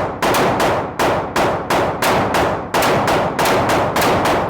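9mm pistol firing rapid shots, about three a second, each crack followed by a short echo.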